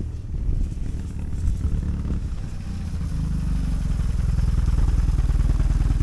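KTM 950 Super Enduro's V-twin engine running at low speed with a fast, even firing beat, getting louder in the second half.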